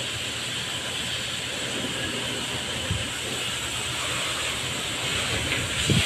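Steady hiss of water spraying from a hose during a vehicle wash, with a couple of brief low thumps about halfway through and near the end.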